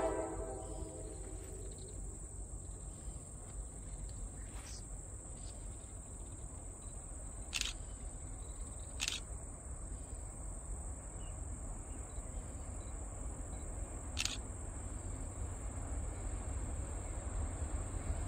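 Outdoor summer ambience: a steady high-pitched insect drone, typical of crickets, over a low steady rumble, with four short sharp ticks scattered through.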